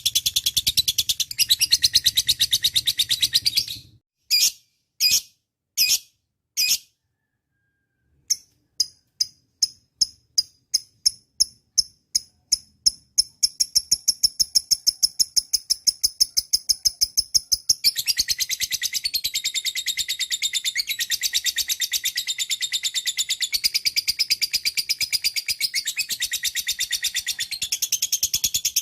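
Lovebird singing: rapid high-pitched chattering breaks off into four separate calls and a brief pause. It then builds from a run of chirps that speed up into a continuous trill, and goes back to dense rapid chattering for the rest.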